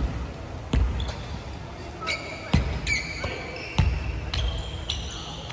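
A volleyball thudding as it is struck or bounced on a wooden gym court, about four sharp hits, with sneakers squeaking on the floor in between.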